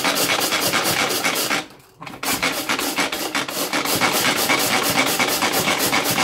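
Pull-cord manual food processor worked with quick repeated pulls, its blades spinning and grinding cornflakes into crumbs. The strokes stop briefly just under two seconds in, then start again.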